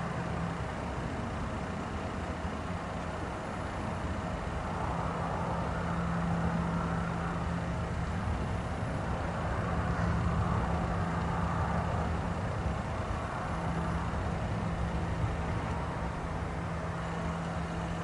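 Steady distant roar heard outdoors at night, with a low hum running under it; the source was never identified, though a jet afterburner is one possibility raised.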